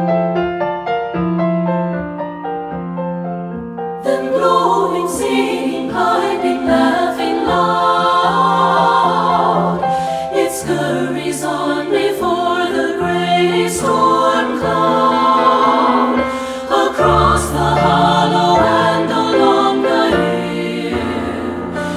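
A piano plays alone for about four seconds. Then a women's three-part (SSA) choir comes in singing with the piano accompaniment.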